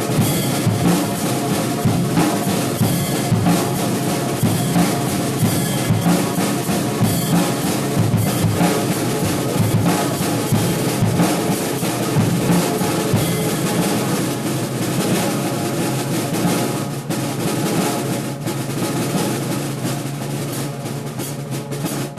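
Acoustic drum kit played continuously, snare, bass drum and cymbal hits, over recorded backing music with steady pitched notes.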